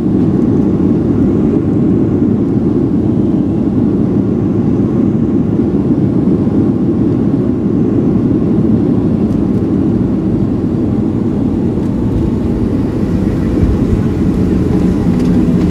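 Steady, loud cabin noise inside a Boeing 737-700 airliner: the engines and the rush of air over the fuselage, heard from a passenger seat.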